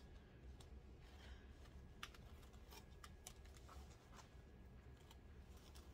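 Near silence with scattered faint light taps and clicks from a handmade paper-and-fabric journal being handled, over a low steady hum.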